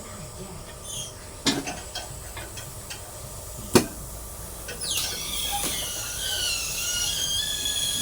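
Two sharp knocks, then about five seconds in a high-pitched squeal with a hiss starts, falling briefly in pitch and then holding steady.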